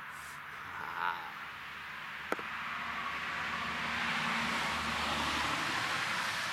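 Road traffic, a car passing by: a steady rush of tyre and engine noise that swells a few seconds in and then eases. A single sharp click a little over two seconds in.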